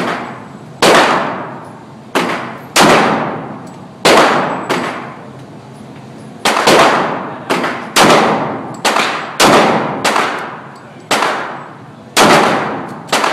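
Handgun shots fired one after another, about a dozen in all at irregular intervals of roughly a second, each sharp report trailing off in echo.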